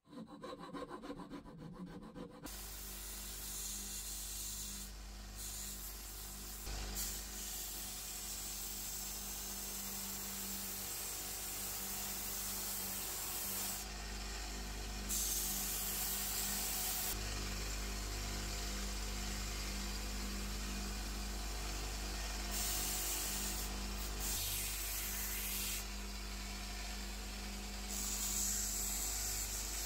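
A power tool runs with a steady hum while wood is worked against it, making a rasping, sanding hiss that grows louder and softer in spells.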